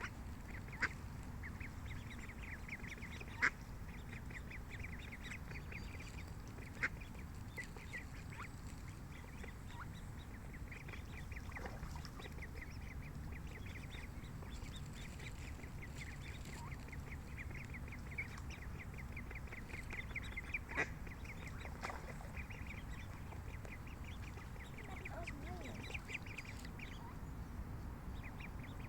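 Ducklings peeping in a rapid, near-continuous stream of short high calls while feeding with their mother, with a few sharp clicks and a steady low rumble underneath.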